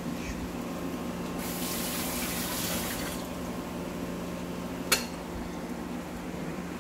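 Bread slices frying in oil in a pan on an induction cooker, a steady hiss over a low hum. A louder rushing hiss swells up a little over a second in and lasts about a second and a half, and one sharp click comes near the end.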